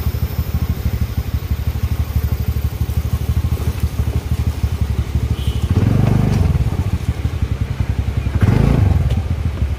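Small scooter engine running as the scooter is ridden slowly, with a steady low pulse. It gets louder twice, about six seconds in and again near the end.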